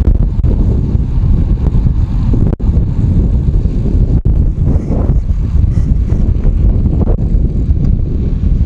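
Wind buffeting the microphone of a camera carried on a moving bicycle: a loud, steady low rumble that cuts out for an instant twice, about two and a half and four seconds in.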